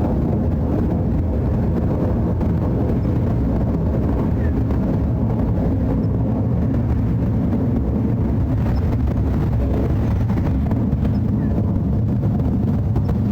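Jet airliner climbing overhead: a steady, low engine rumble.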